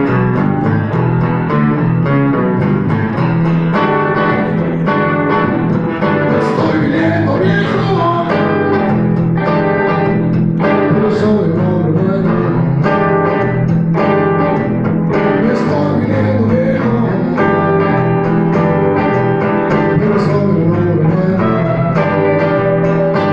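Live acoustic-style band playing: strummed steel-string acoustic guitar, a second guitar and an electric bass carrying a steady low line.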